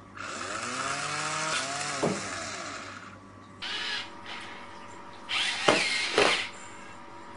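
A small electric motor whirring in bursts: a long run of about three seconds whose whine rises in pitch as it spins up, then two shorter whirs.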